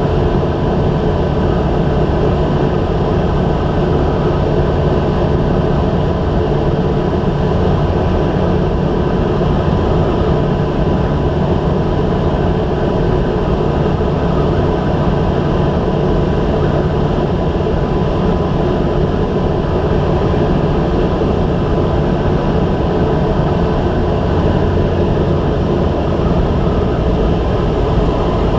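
Single-engine light aircraft's engine and propeller running steadily in flight, heard inside the cockpit: a loud, even drone with a few steady tones over it.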